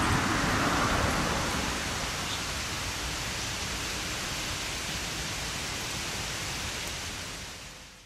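Steady rushing hiss of noise with no distinct events, fading out near the end.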